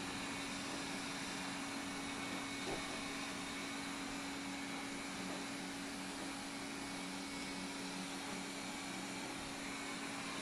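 Xiaomi Mijia 1C robot vacuum running steadily: an even whirring hiss with a constant hum, and a faint tap a little under three seconds in.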